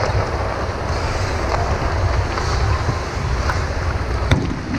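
Ice hockey game heard from rinkside: a steady low rumble and hiss of the rink and play on the ice, with one sharp knock about four seconds in.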